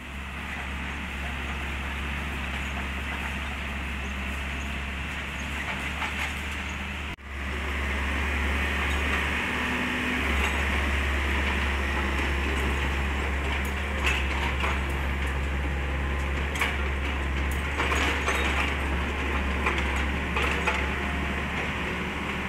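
Kobelco SK50 mini excavator's diesel engine running steadily as the machine is driven on its tracks, with sharp metallic clanks scattered through the second half.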